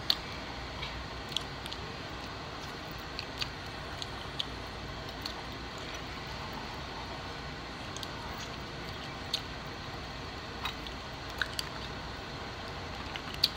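A person chewing seafood, with scattered sharp clicks from handling crab-leg and mussel shells; the loudest click comes just at the start.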